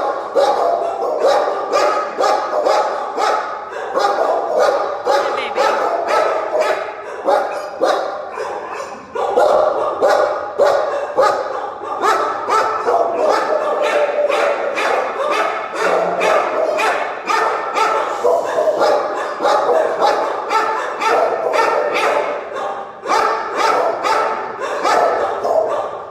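Several shelter dogs barking over one another without a break, several barks a second.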